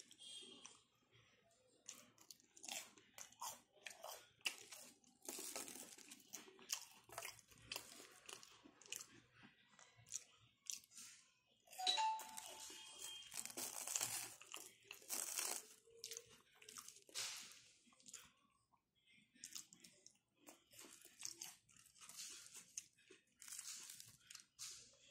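Close chewing and crunching of crisp fried vegetable vadas (garelu): irregular crackly bites and mouth sounds, busiest in the middle and easing off for a moment near the two-thirds mark.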